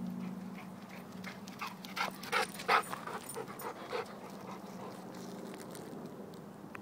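A dog panting hard from running, quick breaths about three a second that are loudest in the middle and die away after about four seconds.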